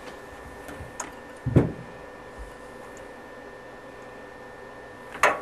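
Hand tools and hands working the faucet's mounting nut under a metal sink: a dull thump about a second and a half in and a sharper metallic clank near the end, over a low steady hum.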